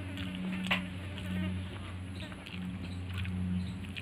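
Close-up eating sounds: fingers squishing rice and fish curry, chewing and small wet mouth clicks and smacks, one sharper click about three-quarters of a second in. Under them runs a steady low hum.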